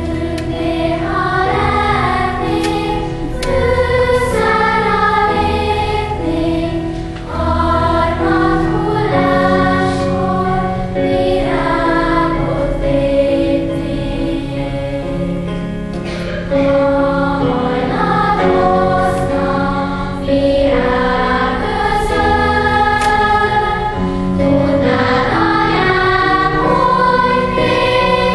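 Children's school choir singing a song in held notes.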